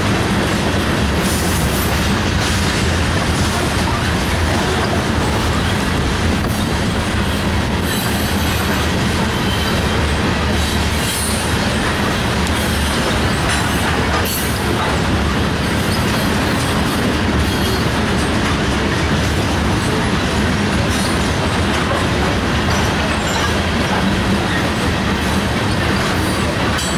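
Norfolk Southern freight train's cars, mostly covered hoppers, rolling past at steady speed: a continuous rumble of steel wheels on rail with scattered clicks as the wheels cross rail joints.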